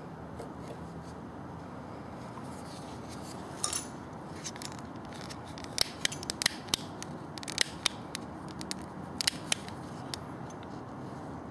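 Steady background hiss with a scatter of light, irregularly spaced clicks in the second half, from small parts being handled.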